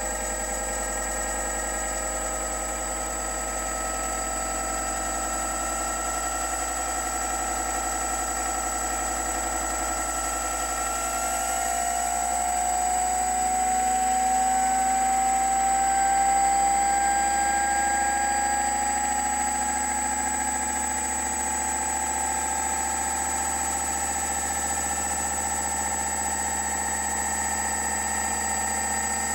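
Electric motor spinning the rotor of a 3D-printed generator, a steady machine whine with several tones that slowly rise in pitch as it speeds up, growing a little louder in the middle.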